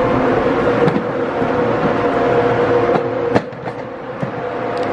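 Vehicle engine running at a steady pitch, with a few clicks and rattles and one sharper knock about three and a half seconds in.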